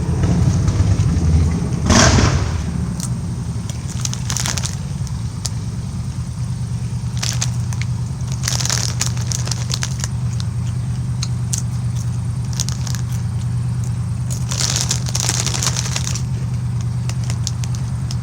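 Crackly crunching and crinkling from a bag of Doritos Flamin' Hot Nacho tortilla chips being eaten, in short bursts every few seconds, over a steady low hum.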